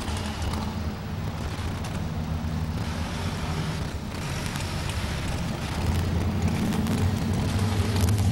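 Heavy engine idling with a low, steady rumble, growing louder about six seconds in.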